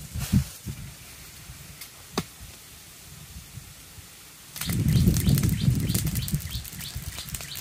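A few scattered faint clicks, then about four and a half seconds in a sudden loud low rumble of wind buffeting the microphone, with dense clicking and rustling over it.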